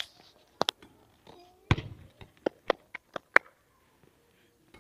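A basketball hitting the hoop and then bouncing on an asphalt court: a string of sharp knocks, the heaviest just under two seconds in, followed by a run of quicker bounces that come closer together as the ball settles.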